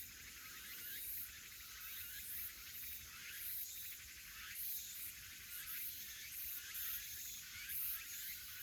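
Forest insects chirping in a steady chorus that pulses about twice a second, with a few faint, short bird calls.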